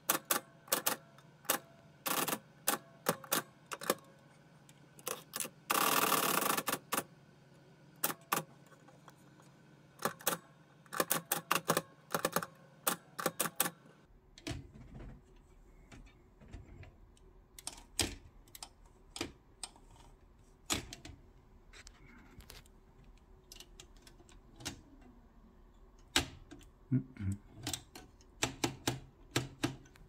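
1973 Olympia SM9 manual typewriter being typed on: sharp keystroke clicks in irregular runs with short pauses between words. About six seconds in there is one longer, continuous noise lasting about a second.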